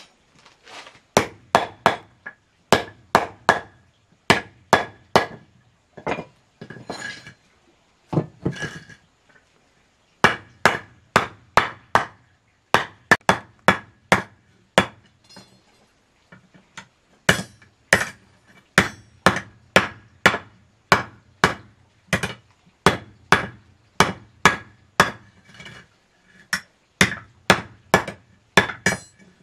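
Hammer blows on thin steel rods laid across a wooden plank: sharp strikes in quick runs of two to four with short pauses between runs, each with a faint metallic ring.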